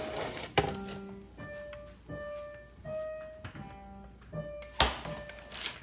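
Background music: a slow melody of single held notes, with two sharp clicks, one shortly after the start and a louder one near the end.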